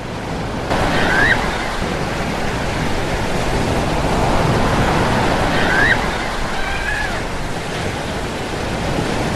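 Ocean surf breaking and washing up a sandy beach: a steady, loud rush of water. Two faint short rising squeaks sound over it, about a second in and again near six seconds.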